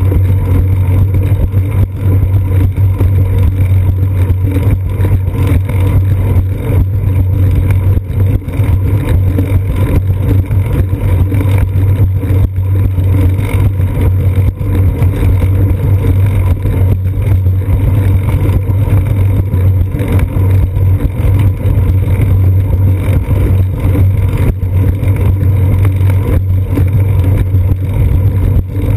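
Steady, loud low rumble of wind and road vibration picked up through a bicycle's seat-post-mounted GoPro Hero 2 housing while riding along a concrete sidewalk.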